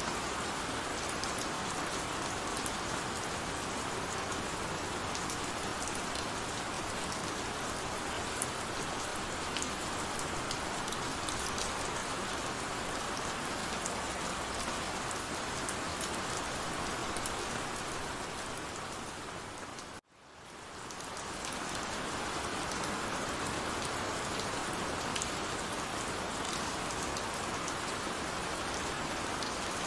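Heavy rain falling steadily, with single drops ticking sharply through the hiss. About two-thirds of the way through it fades briefly to silence and swells back up.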